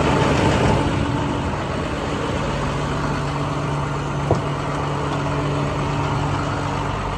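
International bucket truck's diesel engine idling steadily, with a single sharp click a little over four seconds in.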